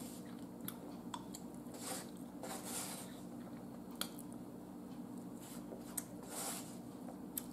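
Faint eating sounds: a metal fork clicking against a plate now and then, with soft chewing and mouth noises in between, over a steady low hum.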